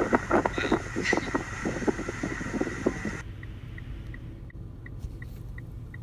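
Wind buffeting the microphone, with a run of short knocks and handling noise. About three seconds in this cuts off abruptly to a quiet background with a steady ticking, about three ticks a second.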